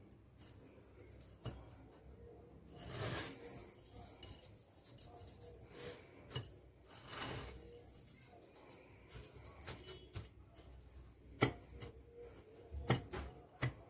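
Crushed cornflakes rustling and crunching softly as a hand presses coated pieces into them in a bowl, with a few sharp clicks against the dishes near the end.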